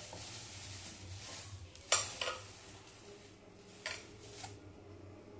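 Kitchen handling sounds as a lemon is cut and handled: a few sharp clicks and knocks of a knife or utensil against a board or dish, the first the loudest, over a faint high hiss that eases after about two seconds.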